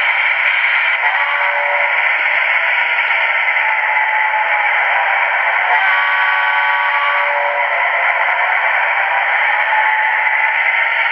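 Canadian Pacific AC4400 model locomotive's DCC sound decoder playing a diesel engine sound through its small speaker: a steady, thin, tinny noise with no bass. Pitched tones come in over it about a second in and again from about six to seven and a half seconds in.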